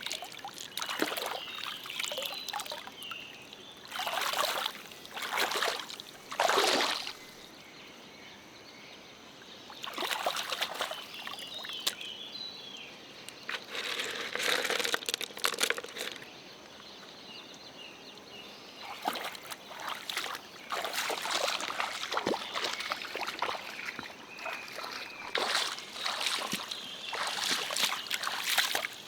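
Shallow stream water trickling, broken by irregular splashes and sloshes that come and go every few seconds and are busiest in the second half.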